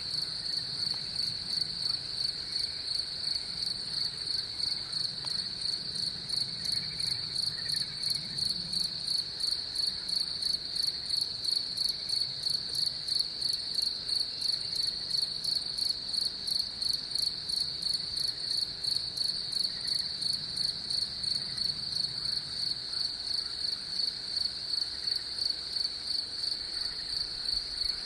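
Crickets singing: a steady high-pitched trill with a second, higher chirping that pulses at an even rhythm, over a faint low hum.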